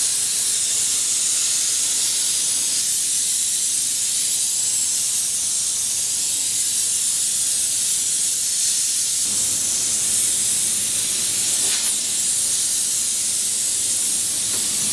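Handheld steam cleaner jetting steam in a steady, loud hiss.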